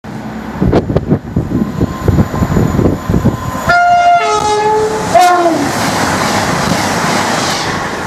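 Two-tone train horn from an approaching train: a high note then a lower note, then a shorter blast falling from high to low, about halfway through. A rising rush of train noise follows, and an irregular low rumble comes before the horn.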